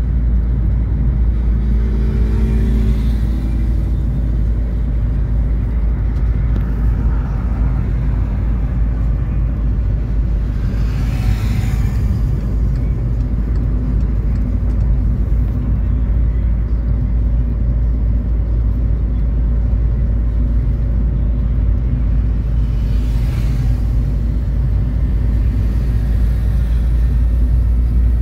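Car interior road noise while driving on a highway: a steady low rumble of engine and tyres. Two brief whooshes of hiss rise and fade about eleven seconds in and again near twenty-three seconds.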